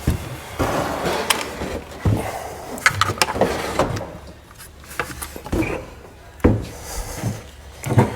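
Irregular knocks, clunks and scraping as a Humvee's removed A and B pillar section is lifted and handled.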